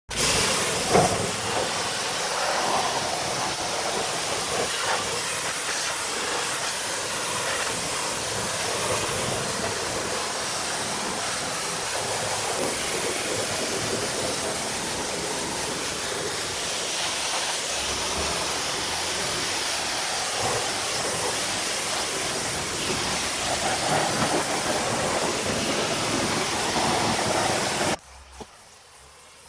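Pressure washer jet spraying water onto a wheel and tire: a loud, steady hiss that cuts off sharply near the end.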